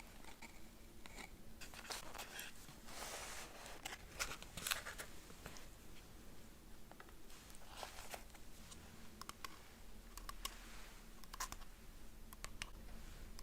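Close-miked eating sounds of a burger and French fries being chewed: irregular wet mouth clicks and crackles, busiest a few seconds in.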